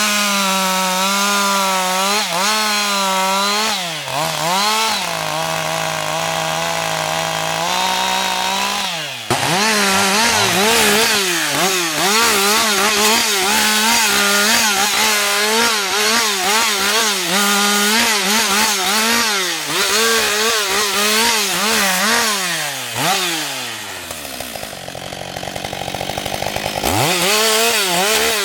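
Husqvarna 560 XP two-stroke chainsaw running at high revs while cutting wood, its pitch wavering as the load changes. Around 23 seconds in the revs fall to a lower, quieter note for a few seconds, then rise sharply again near the end.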